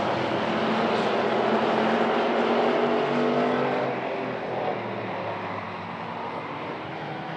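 Hobby Stock race cars running at racing speed on an oval, several engines at once. The sound swells as the nearest cars pass, loudest one to four seconds in, and then eases off.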